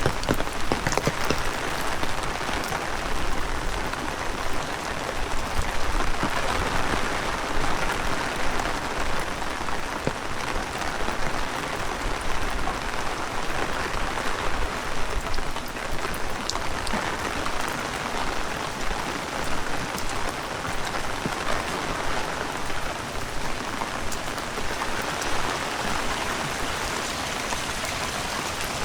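Heavy rain falling steadily, swelling and easing every few seconds, with scattered sharp raindrop hits.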